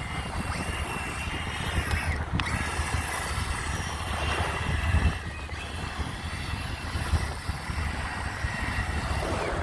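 Electric motor of a toy RC monster truck giving a thin, steady whine that dips briefly a couple of seconds in, over a hiss of noise and a low rumble from wind on the microphone.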